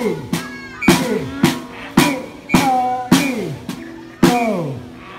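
Music with a steady drum beat, a little under two hits a second, each hit followed by a falling tone.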